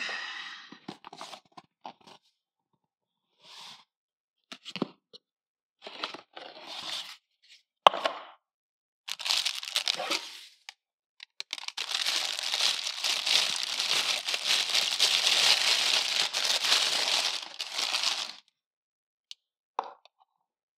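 Plastic packaging being handled while a camera is unboxed: scattered rustles and clicks, then about six seconds of continuous plastic crinkling as the camera is unwrapped from its plastic bag, and a couple of short taps near the end.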